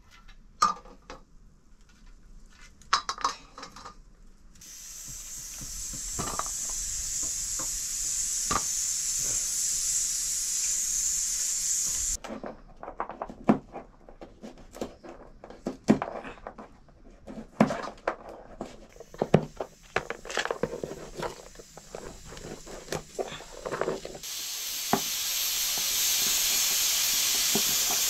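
Knife and utensil knocks and clinks as dried buffalo meat (sukuti) is cut, irregular sharp strikes. Twice a loud, steady hiss comes in and cuts off abruptly, once for several seconds about five seconds in and again near the end.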